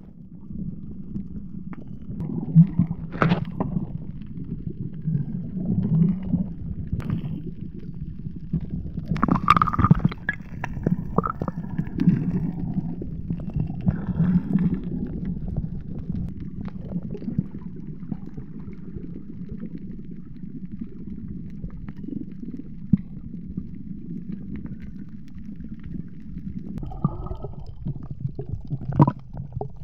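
Muffled underwater rumble and gurgling of moving water heard through a submerged camera housing, with scattered clicks and a few louder swishes.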